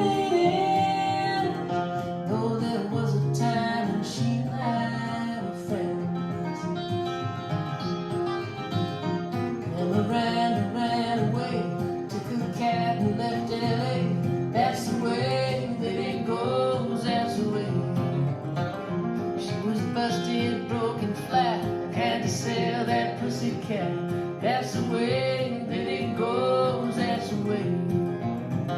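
Country-style song with plucked guitar and a singing voice.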